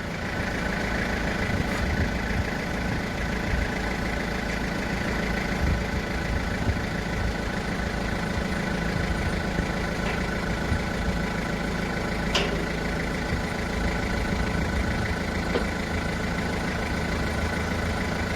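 A motor-driven machine starts up and runs steadily, a constant whine over a low hum, with a few faint clicks.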